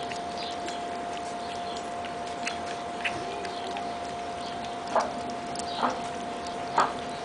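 Two husky puppies eating moist food from a metal pan: small wet smacking, chewing and lapping clicks, with three louder smacks in the last two seconds.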